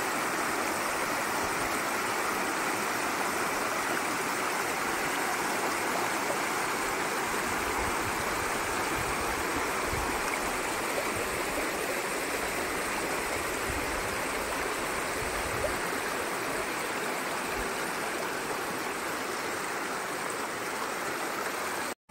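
Shallow stream rushing over rocks and a low stone ledge: a steady rush of white water that cuts off abruptly near the end.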